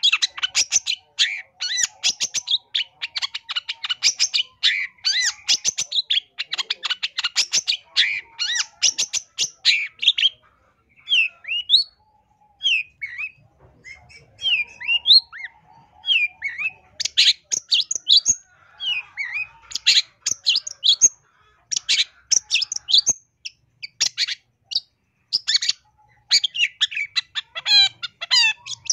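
Long-tailed shrike (cendet) singing a fast, varied song of sharp chirps, trills and mimicked calls of other birds. The notes run densely for the first ten seconds, then come as separate short whistles and chirps with brief pauses, and thicken again in the second half.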